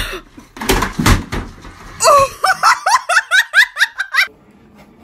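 A flat-screen TV knocked off a dresser by a cat crashes to the floor with a clatter of heavy impacts about a second in. It is followed by a person's rapid, high-pitched laughter.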